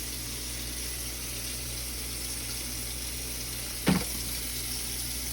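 Steady hiss of running water, with one sharp knock a little before the end.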